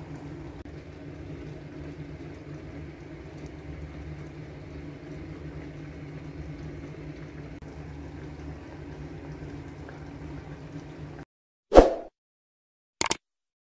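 Steady low hum with a faint hiss, kitchen background noise, that cuts off about eleven seconds in. Then a single short thump and, near the end, a click sound effect from a subscribe-button animation.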